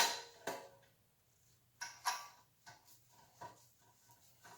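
Metal bicycle headset and triple-tree parts clinking and knocking as they are handled and fitted: a loud ringing clink at the start, another half a second later, two more around two seconds in, then a few lighter taps.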